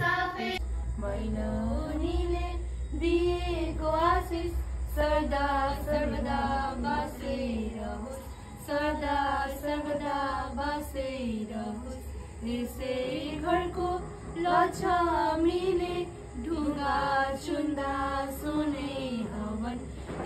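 A group of young women singing a Nepali Tihar bhailo song together in unison, with no instruments, over a steady low hum.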